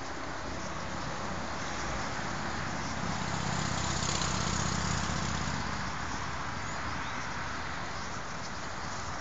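A passing motor vehicle: a low engine hum swells about three seconds in and fades again, over steady outdoor background noise.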